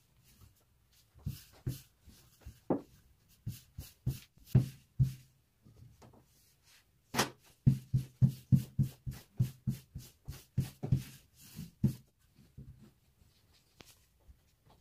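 Wooden rolling pin knocking and thudding against a wooden table as stacked baklava dough sheets are rolled out by hand. A few scattered knocks at first, then, about halfway through, a fast, even run of about three knocks a second for some five seconds.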